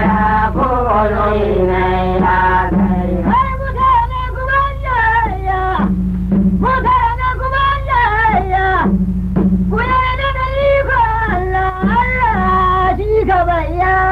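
Hausa praise song sung by a man in long, wavering, ornamented phrases over a steady low accompaniment, with a held low note returning between phrases.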